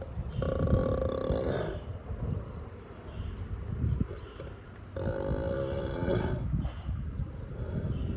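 Ox snoring in heavy sleep: a rough, rumbling snore throughout, with two longer pitched snores, one starting about half a second in and one about five seconds in.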